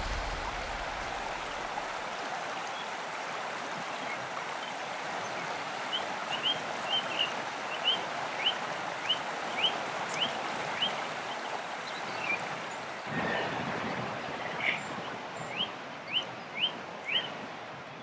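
Steady rush of a river running through the valley, with a small bird repeating a short rising chirp about twice a second for several seconds, then again near the end.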